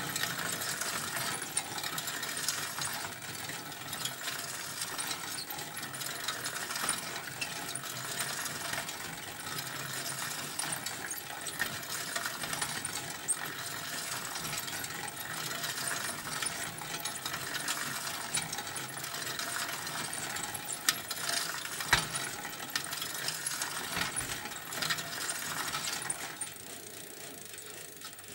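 Bicycle ridden close to the microphone: the chain and freewheel ratchet run with a dense, steady ticking rattle. One sharper click stands out about three-quarters of the way through, and the sound eases off near the end.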